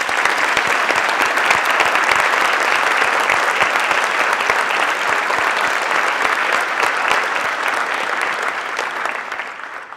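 A large seated audience applauding: dense, steady clapping from many hands that fades out near the end.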